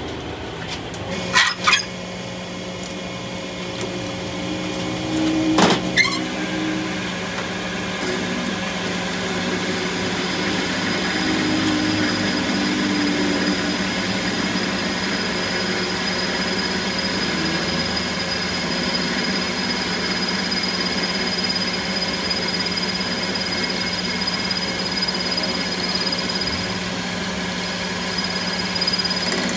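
A machine running steadily with a low hum, with a few sharp knocks in the first several seconds. A thin high whine joins in about ten seconds in and stops shortly before the end.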